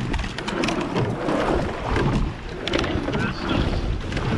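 Rowing eight under way: the oars clunk in their gates and the blades splash through the water, with repeated sharp clunks over wind buffeting the microphone.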